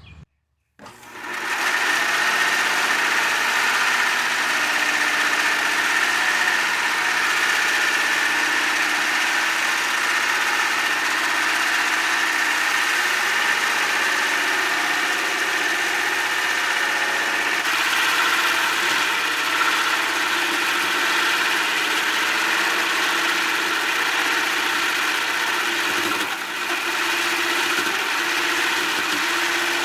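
Homemade wooden band saw mill running steadily as its blade cuts through a large hard maple log.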